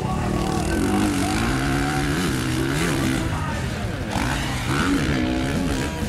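Dirt bike engine revving hard, its pitch rising and falling repeatedly as the throttle is opened and closed on the track.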